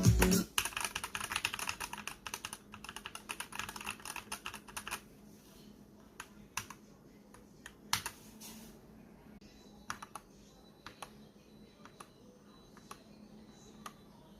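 Gamakay LK67 mechanical keyboard with Gateron silver switches being typed on: a fast run of keystrokes for the first few seconds, then slower, scattered single key presses.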